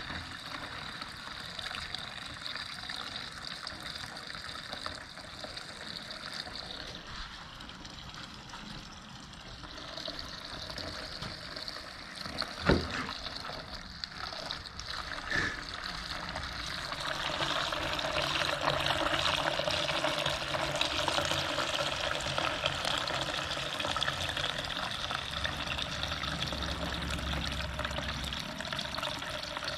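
Gasoline pouring from a plastic gas can through a funnel into a portable generator's fuel tank: a steady trickling stream that grows louder a little past halfway. One brief knock about a third of the way in.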